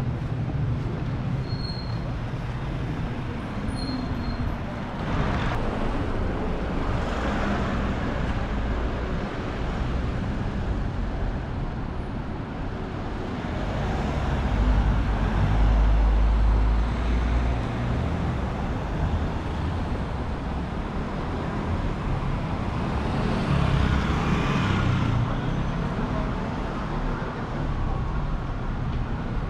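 City street traffic: vehicles passing by one after another over a steady background hum, the loudest with a deep engine rumble about halfway through.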